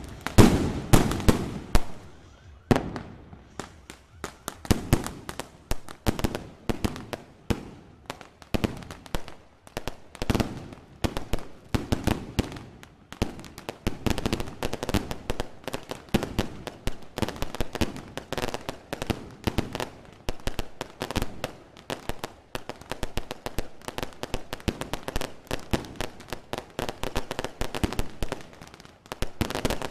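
Fireworks going off in a dense, rapid run of bangs and crackles, several per second, loudest in the first couple of seconds.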